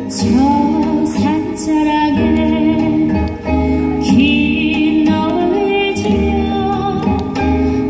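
Soprano singing a slow melody with vibrato into a microphone, amplified over instrumental accompaniment.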